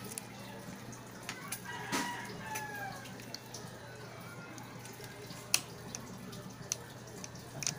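Small sharp clicks and ticks of a screwdriver and wire being worked along the metal edge of a TV's backlight panel, over a steady low hum. About two seconds in, a distant pitched call sounds for about a second and slides down in pitch.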